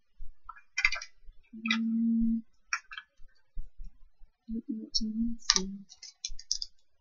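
Small plastic packaging being handled and peeled open by hand: scattered crinkles and clicks of thin plastic wrap and capsule. A short low hum about a second and a half in, and a few broken hums near the end.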